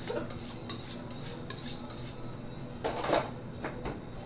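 Kitchen knife being sharpened on a steel: quick short scraping strokes of blade on rod, about three or four a second, then a louder, longer scrape about three seconds in.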